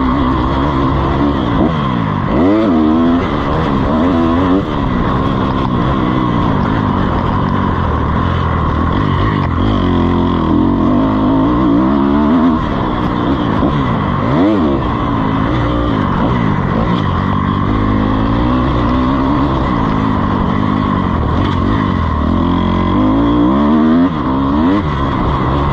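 Dirt bike engine ridden hard around a motocross track, the revs climbing and dropping again every couple of seconds as the throttle is opened and shut through gear changes and corners.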